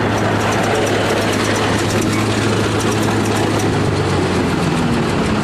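Bulldozer's diesel engine running steadily with a low, even hum that eases off near the end, with faint metallic clicking over it as the dozer works on the crushed cars.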